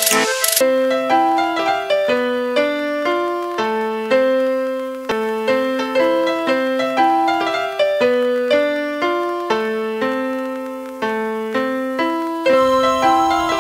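Background music: a piano melody of single notes, about two a second, each fading after it is struck. Fuller accompaniment joins near the end.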